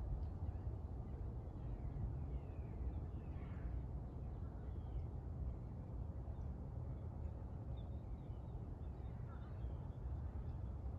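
Faint bird calls from distant birds, short and scattered, over a steady low rumble.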